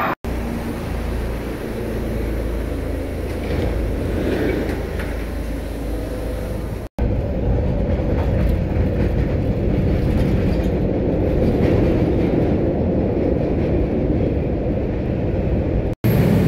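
MBTA subway train running on the tracks: a steady rumble and rattle of wheels and car, in clips spliced together with brief breaks about seven seconds in and near the end.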